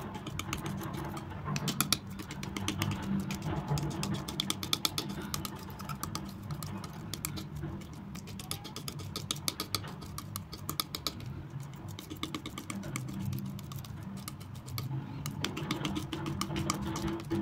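Metal palette knife working thick acrylic paint on a smooth surface: spreading, scraping and folding it, with fast runs of small sticky clicks as the wet paint pulls away from the blade.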